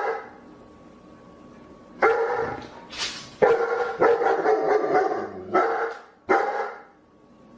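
A dog barking: a burst of about six loud barks in quick succession, starting about two seconds in, with a quieter gap before them.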